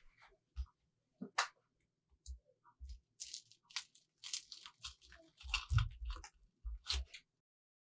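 Knife and fork cutting into a crisp fried pizza-dough ball on a glass plate: irregular crunching and tearing of the fried crust, with a few sharp clicks of the cutlery against the glass.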